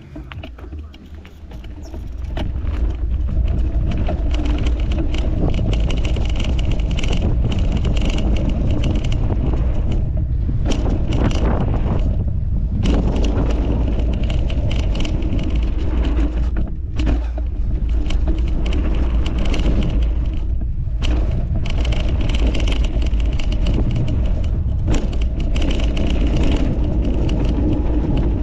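Mountain bike ridden fast on a dirt trail: wind rushing over the microphone and tyres rolling on dirt. The noise builds about two seconds in and drops away briefly a few times.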